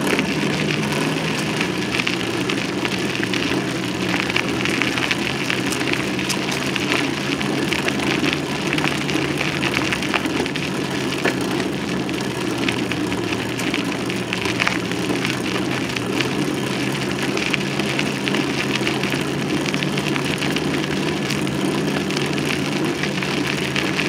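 Steady ride noise of a bicycle rolling over a dirt trail, picked up by a camera zip-tied to the bike: tyre rumble and frame vibration with constant small rattling clicks.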